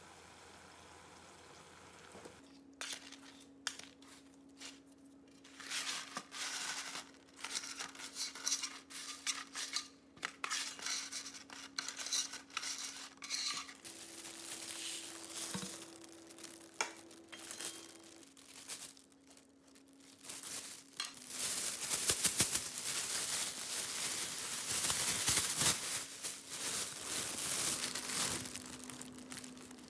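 Kitchen work sounds: irregular clinking and handling of dishes and utensils with rustling and crinkling, busier in the last third, over a faint steady hum.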